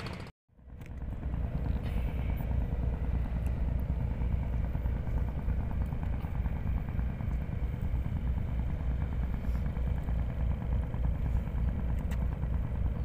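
Wind buffeting the phone's microphone on an open seafront: a steady, fluttering low rumble.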